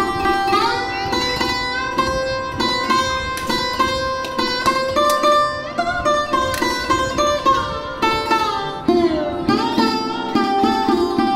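Background instrumental music: a plucked string melody with sliding notes, sitar-like, over a sustained drone.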